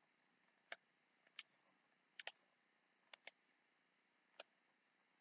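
Computer mouse clicking: about seven short, sharp clicks spread across a few seconds, some in quick pairs, with near silence between them, as support points are placed in slicer software.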